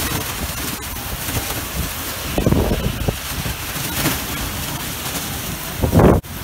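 Heavy rain and strong storm wind, a dense steady hiss with gusts buffeting the microphone. A louder gust swells near the end and then cuts off abruptly.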